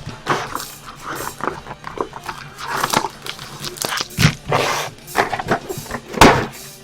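Hands tearing open a sports-card box and its foil packs: irregular bursts of ripping and crinkling wrapper, with cards being handled.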